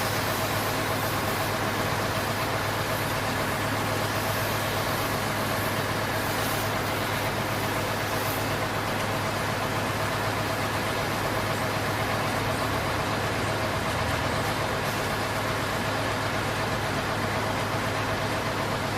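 An engine running steadily: an even, unchanging drone with a low hum.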